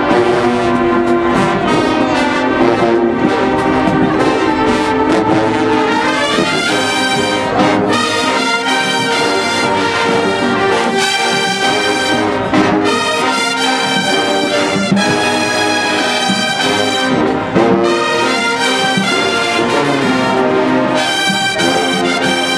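Marching band playing, led by its brass (trumpets and trombones): loud sustained chords that turn choppier and more rhythmic about six seconds in.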